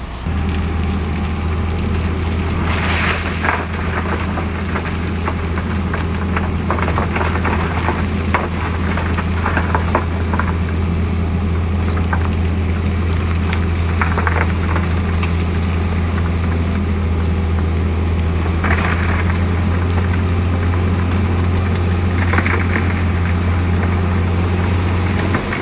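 Heavy diesel engine of earthmoving machinery running steadily at a constant speed, with scattered clanks and rattles over it.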